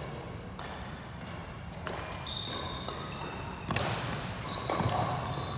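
Badminton rally: about four sharp racket strikes on a shuttlecock, with short high squeaks of shoes on the wooden court floor between them.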